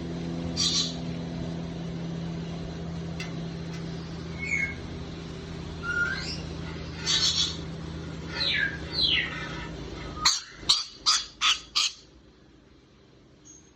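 Pet parrot calling: scattered short chirps and squawks, some falling in pitch, then five loud sharp calls in quick succession about ten seconds in. A steady low hum runs underneath and stops as the loud calls begin.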